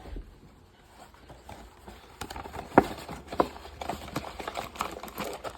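Hands handling a trading-card pack's packaging: irregular light clicks and taps, two sharper ones about three seconds in.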